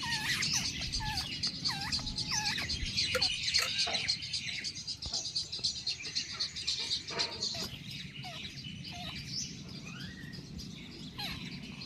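Babblers calling: a dense chatter of high chirps, busiest in the first four seconds, with lower curving calls mixed in at first, thinning out after that.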